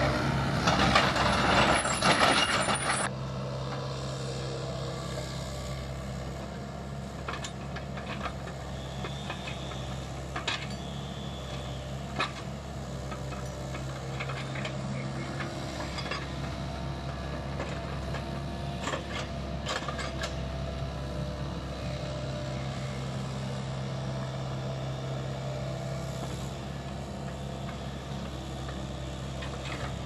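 Tracked excavator's diesel engine running steadily while it works a log grapple. A loud hiss fills the first three seconds, and a few sharp knocks of handled logs are scattered through the rest.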